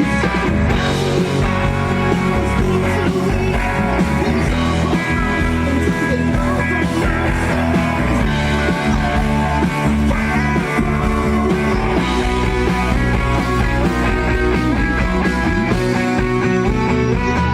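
Rock band playing live at a sound check, with electric guitar prominent, loud and continuous.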